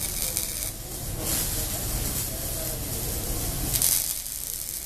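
Electric arc welding: a steady hissing crackle from the arc, with louder surges about a second in and near the end.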